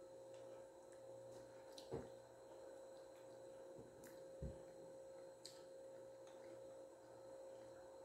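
Near silence: a steady faint hum with a few soft clicks, the clearest about two seconds in and again a couple of seconds later.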